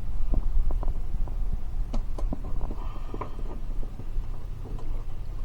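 Fishing boat's engine running with a steady low drone, with scattered light knocks and clicks.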